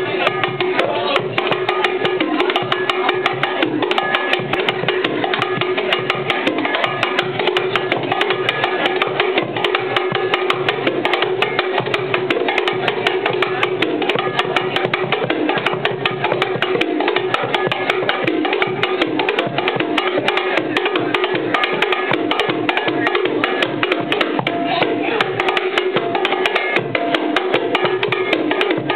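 Bongos played with bare hands in a fast, steady rhythm of sharp strikes, kept up without a break.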